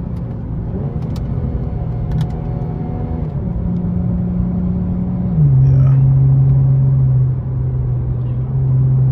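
Car engine and exhaust droning at a steady pitch. About five and a half seconds in, the pitch drops a step and the drone gets louder.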